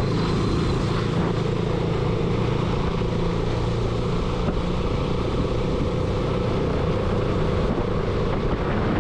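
A single-cylinder 200 cc motorcycle being ridden, its engine running steadily under a constant rushing noise; the low engine note weakens about halfway through.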